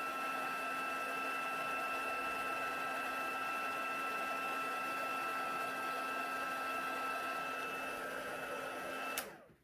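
Heat embossing tool's fan motor running steadily with a constant whine, blowing hot air to melt embossing powder; it is switched off about nine seconds in with a click and winds down.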